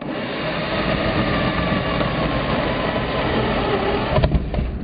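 Cordless drill running at speed, boring freehand into softwood at a board's edge with a carbide-tipped art bit (Kunstbohrer), a bit that has no rim cutter and typically goes wrong at an edge. The drill's hum is steady, with a burst of knocks near the end as the bit catches in the wood.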